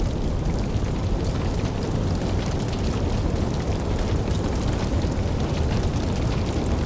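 Fireball explosion sound effect in its burning tail: a steady low rumble of flames with many small crackles, after the blast has died down.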